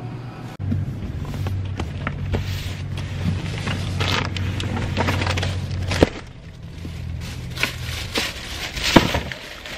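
Shopping being loaded into a vehicle's open rear hatch: plastic shopping bags rustling and boxes knocking as they are set down, with a couple of sharper knocks, over a steady low hum.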